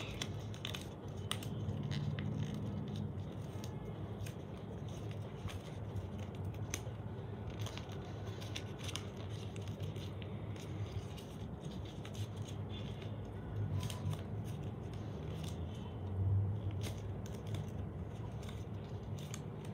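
Origami paper rustling and crinkling as it is folded and creased by hand, with many small crisp clicks scattered throughout, over a steady low hum.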